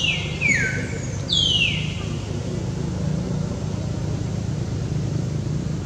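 Baby macaque giving high-pitched squeals that slide down in pitch, three in the first two seconds. Under them runs a steady low hum.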